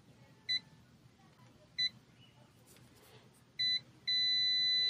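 UNI-T digital multimeter's continuity buzzer giving three short high beeps, then a steady beep from about four seconds in as the probes touch across the fuse, showing that the fuse conducts.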